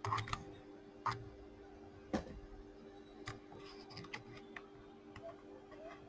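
Ring-binder resistor sample book being closed and handled: a few sharp clicks and thumps, the loudest at the start and again about one and two seconds in, then lighter ticks, over a steady low hum.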